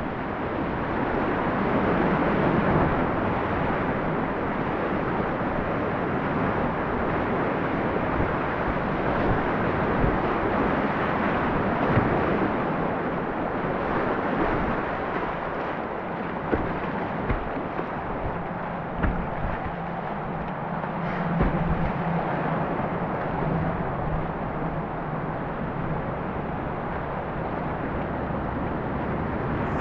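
Whitewater rapids rushing steadily around a kayak, with scattered low knocks and splashes from the paddle and hull.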